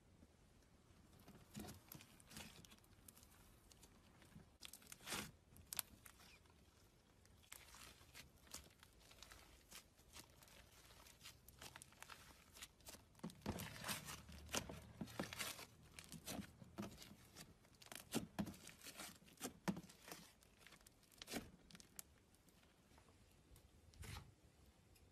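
Slime being stretched, poked and pressed by hands: faint, irregular crackling and tearing sounds, busiest in the middle.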